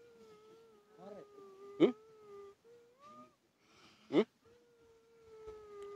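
A man in a trance makes a few short, high-pitched vocal cries, the two loudest about two seconds and about four seconds in, over a faint steady high hum.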